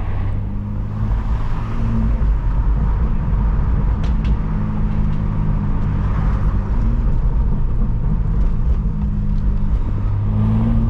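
BMW B48 turbocharged 2.0-litre four-cylinder running at low revs through its stock exhaust and aftermarket downpipes, with the exhaust valves switched open. It is a steady, deep note that lifts slightly a few times.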